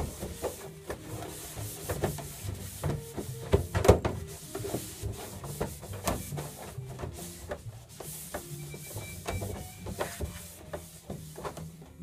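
Hands rubbing and knocking against a plastic darkroom tray, with a run of small clicks and bumps, the loudest about four seconds in, over background music.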